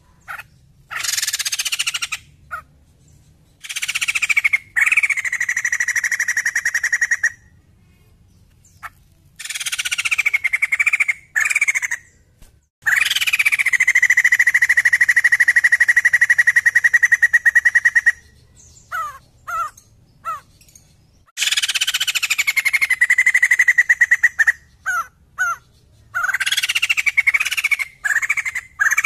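White-crested laughingthrush calling in full voice: about five long buzzy phrases, each sliding down from a high start to a steady held note, the longest lasting about five seconds, then a run of short chips near the end.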